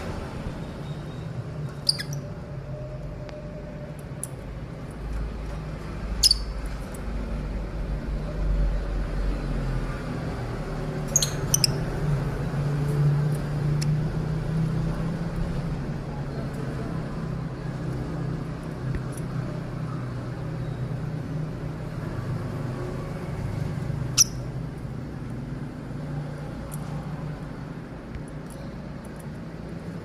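Caged lovebirds giving a handful of very short, shrill chirps spaced several seconds apart. The loudest comes about two thirds of the way through. A steady low rumble runs underneath.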